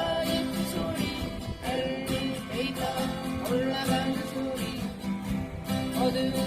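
Acoustic guitar strummed steadily while a voice sings a slow melody over it, with held notes sliding between pitches.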